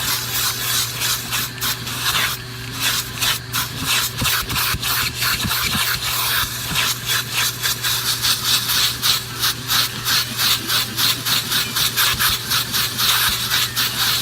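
Vacuum cleaner running with a steady hum while its nozzle or brush is scrubbed back and forth over car carpet in quick, rhythmic scratchy strokes, a few a second.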